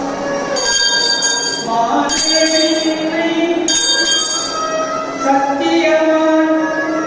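Devotional chant sung with musical accompaniment, held notes shifting in pitch. A bell rings three times, about a second and a half apart.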